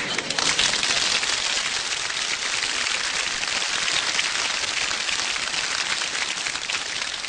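A large studio audience applauding: dense, steady clapping that eases off slightly near the end.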